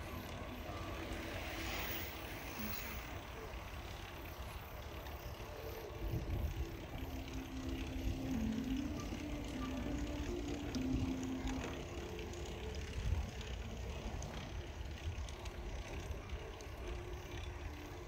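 Riding a bicycle along a smooth paved path: a steady rumble of wind on the microphone mixed with tyre noise, with louder gusts about six and thirteen seconds in.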